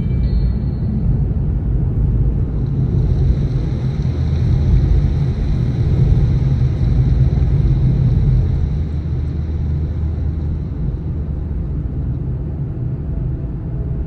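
Nissan Fairlady Z (Z34) driving, its engine and road noise a steady low rumble that eases slightly after about eight seconds.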